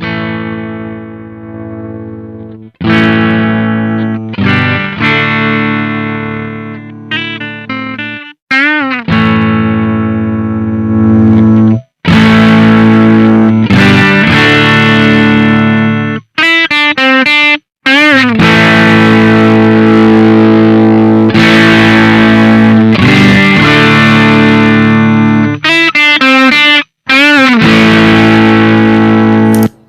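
Electric guitar played through a Velouria FX Witchcraft distortion and preamp pedal: distorted chords rung out and then cut short, with quick sliding notes in between. The playing gets louder and heavier about twelve seconds in.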